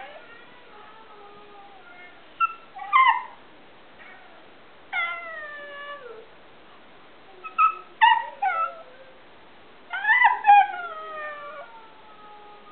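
Alaskan Klee Kai dog 'talking': bouts of short howling and whining calls that slide down in pitch, four bouts with pauses of a second or two between them.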